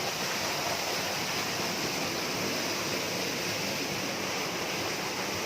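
Waterfall rushing steadily: water pouring over the rocks in an even, unbroken roar.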